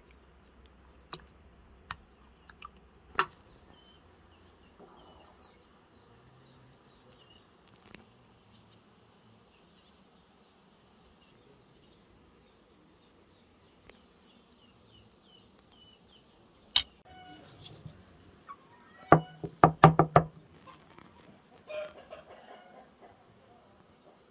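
Chickens clucking, with a loud burst of rapid clucks about 19 seconds in and weaker clucks just after. Faint high chirping and a few sharp clicks come earlier.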